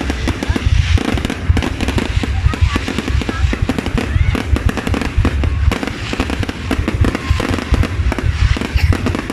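Aerial fireworks display: a continuous run of bangs and crackles with deep booms underneath.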